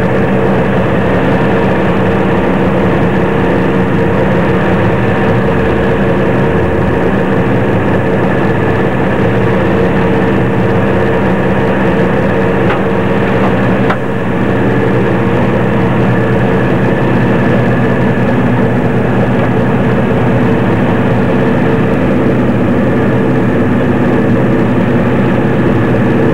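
Race truck's engine idling steadily, heard loud from the on-board camera inside the cab.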